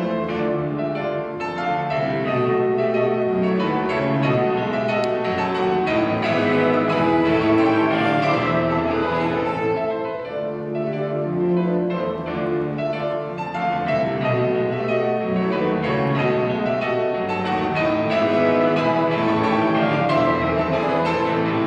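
Piano duet playing a romantic classical piece, with dense, continuous notes from low to high.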